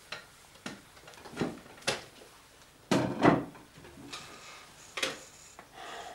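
A series of sharp knocks and clatters, like household objects or furniture being handled, about half a dozen in all. The loudest is a heavier knock about three seconds in.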